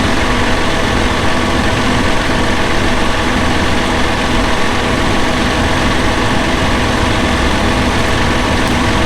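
Tractor engine running steadily under load while pulling a disc ripper through the field.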